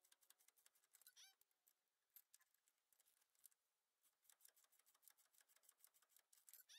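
Near silence, with faint scattered ticks and two brief faint chirps, one about a second in and one near the end.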